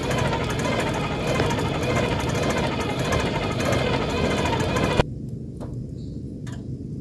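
Hand-cranked blower whirring with a fast rattle as it forces air into a charcoal grill to fan the coals; it stops abruptly about five seconds in.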